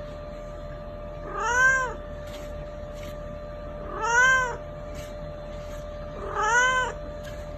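A cat meowing three times, a couple of seconds apart; each meow is about half a second long and rises then falls in pitch. A faint steady hum runs underneath.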